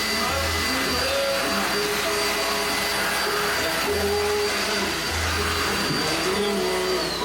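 Household vacuum cleaner running steadily with a high-pitched motor whine. Near the end the whine starts to fall as the motor winds down.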